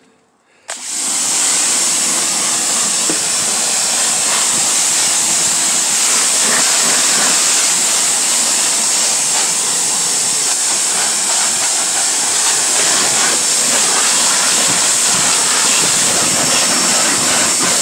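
Pressure washer spraying a jet of water onto an old car's seat upholstery and floor: a loud, steady hiss that starts about a second in.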